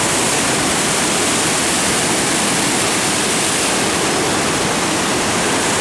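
Flood-swollen creek running as a raging river: a loud, steady rush of fast water.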